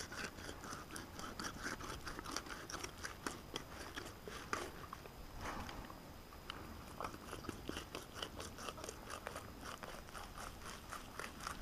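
Fillet knife cutting into a northern pike: a dense run of small, irregular clicks as the blade works through the fish's skin and flesh.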